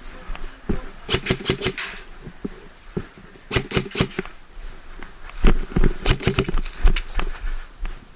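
Three short runs of rapid, sharp clicks, about seven a second, with a single click near the end.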